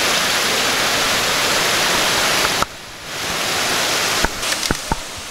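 Cascading waterfall rushing steadily. It drops off abruptly about two and a half seconds in and the water sound builds back up more quietly, with a few sharp clicks near the end.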